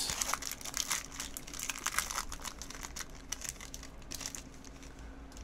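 Foil Pokémon booster pack wrapper crinkling as it is opened and the cards are pulled out. A dense crackle for the first couple of seconds, then fainter and sparser.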